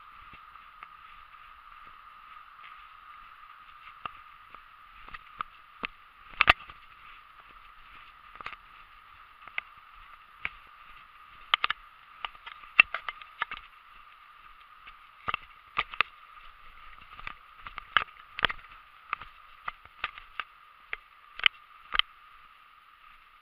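Irregular sharp knocks and jolts of a handheld camera during a fast run down a sand dune, growing more frequent after the first few seconds and coming up to about two a second, over a steady thin hiss.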